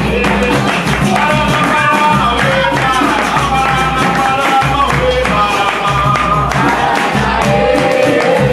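Capoeira roda music: voices singing over berimbau and hand percussion, with the circle clapping along in a steady rhythm.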